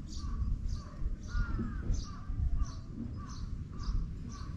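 Birds calling over and over, about two short calls a second, over a low rumble.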